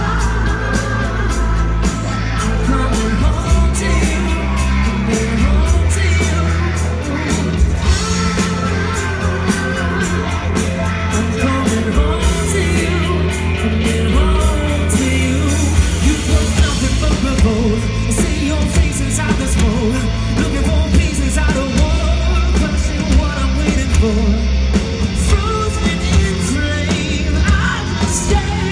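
Live rock band playing, with lead vocals, electric guitars, heavy bass and drums, recorded from the crowd in a club so the sound is loud and boomy; audience members can be heard yelling and singing along.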